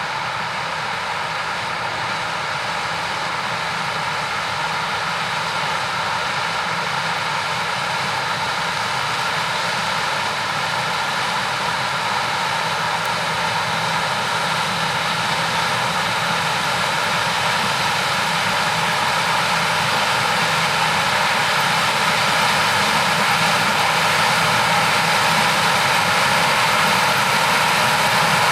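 Heavy farm harvesting machinery running steadily with a deep diesel engine note, gradually getting louder.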